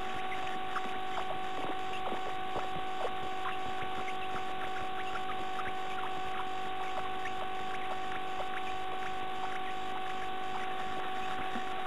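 Steady electrical hum and hiss from a nest-box camera, with faint irregular ticks and scratches as a female bird shifts in the nest cup over her chicks.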